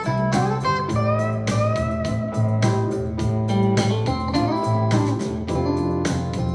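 Music played back through a portable speaker for a sound test: guitar with notes that bend in pitch over a steady bass line and a regular drum beat.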